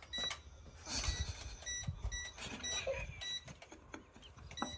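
Short, high electronic beeps from a toy drone's handheld remote controller, coming unevenly several times, with a faint low rumble underneath.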